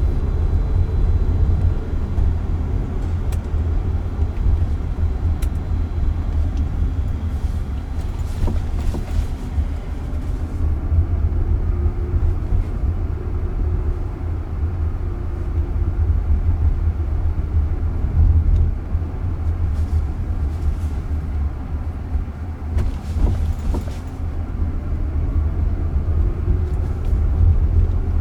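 Road noise inside a moving car's cabin: a steady low rumble of tyres on pavement, with a few faint knocks along the way.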